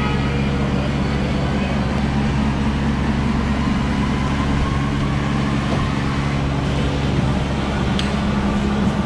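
A steady low machine hum running without change, with one short sharp click about eight seconds in.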